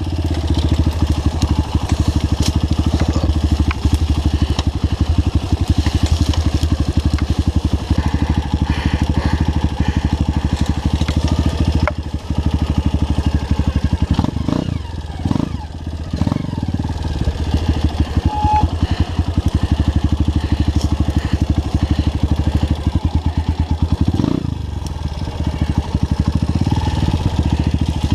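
Vehicle engine running steadily on a trail, with the throttle easing and changing briefly about halfway through and again near the end.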